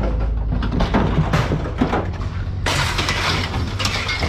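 Scrap metal being thrown off a pickup truck onto a scrap pile: a run of clanks and clatters, then a big crash about two and a half seconds in, over a steady low hum.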